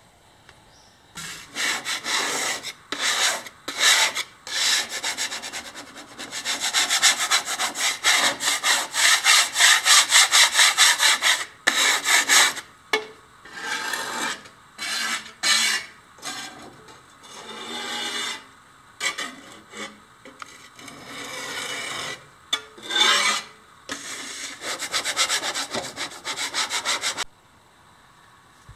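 Hand scrubbing of cement haze off a tiled countertop: rasping back-and-forth strokes in runs, fastest a few seconds in, with short pauses between runs, stopping shortly before the end.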